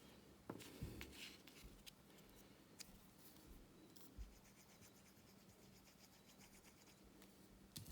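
Near silence with a few faint clicks and light rubbing sounds of small paper pieces being handled on a craft table.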